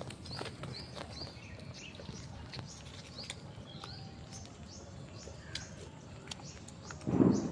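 Small birds chirping over a low background hiss, a few short, high chirps a second. Near the end a brief, much louder, lower sound cuts in.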